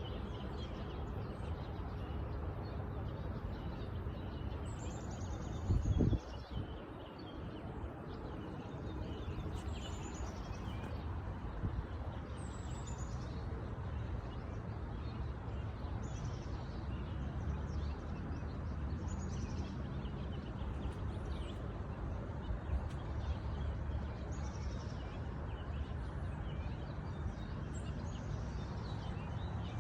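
Outdoor ambience: a bird calling over and over, short high calls that fall in pitch, one every two or three seconds, over a steady low rumble. A brief thump about six seconds in.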